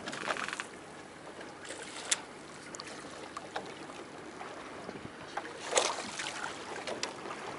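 Sea water sloshing against a small fishing boat's hull, a steady wash with scattered sharp clicks and knocks, the loudest about two seconds in and near six seconds.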